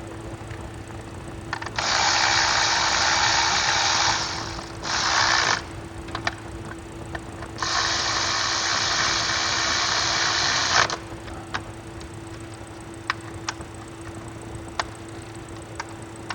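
A power tool run in three bursts with sharp starts and stops, the longest about three seconds, then a few light clicks, as screws on the car's ignition control module are worked.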